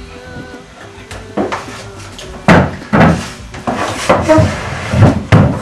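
A heavy wooden chair is pulled out and shifted at a dining table, giving a series of loud wooden knocks and bumps, about six of them, starting about halfway through.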